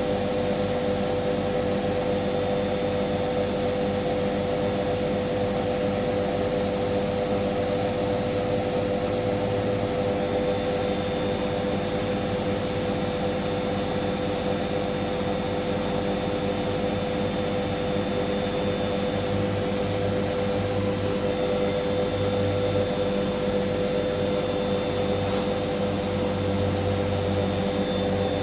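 Hoover washing machine on its final spin, set to 1400 rpm. The drum turns at a steady high speed, giving an even motor whine over a rushing noise.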